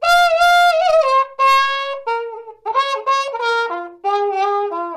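Trumpet played through a hand-held mute moved toward and away from the bell, giving a phrase of held notes with a wah-wah sound as the tone is muffled and opened up again. The notes change pitch and the phrase steps lower near the end.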